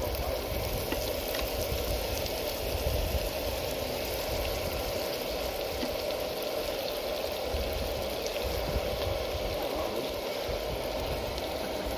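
Pan of chopped tomato, onion and spices frying, with a tablespoon of butter melting and bubbling into it: a steady sizzle.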